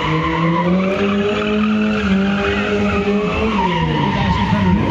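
Lada 2107 drifting: its engine is held at high revs while the tyres squeal and skid. The revs drop about three and a half seconds in and pick up again near the end.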